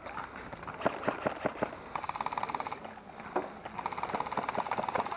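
Airsoft electric rifle firing on full auto in two bursts, a fast even rattle, the second burst starting a little before the halfway mark and running longer; scattered sharp clicks of BB impacts and movement come before it.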